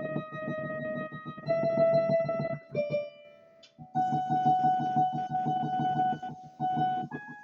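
Casio PX-350 digital piano keys hammered rapidly and repeatedly, one note at a time, moving to a new pitch several times with a short pause about three seconds in: testing the keys for the knocking and rattling fault.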